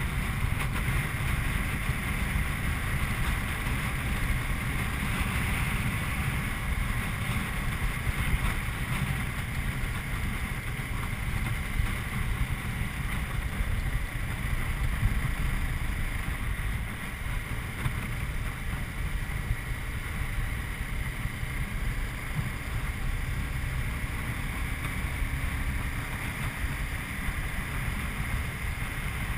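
Wind rumbling and buffeting over a motorcycle-mounted camera at road speed, with a Honda CBR250R's single-cylinder engine running steadily beneath it.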